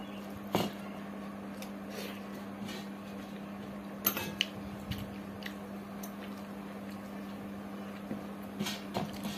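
Eating by hand from steel plates: a few light clicks and scrapes of fingers against the metal, with the clearest about half a second in, around four seconds in and near the end, over a steady low hum.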